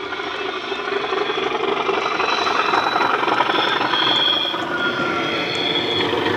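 Two Bachmann OO-gauge Class 37 diesel models running under digital sound, their SWD decoders playing the English Electric engine sound through EM2 speakers, with the rumble of the wheels on the track. It grows louder as the locomotives pass close about three to four seconds in, with a high whistle on top.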